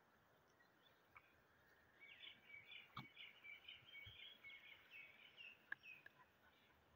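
Faint bird chirping: a rapid run of short high notes from about two seconds in until about six seconds, with a couple of soft knocks in between.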